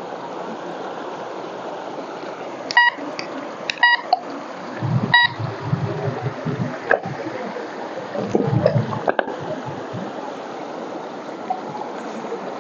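Mountain stream running steadily over stones, with a handheld metal detector giving about four short beeps around the middle. A few dull low thumps follow.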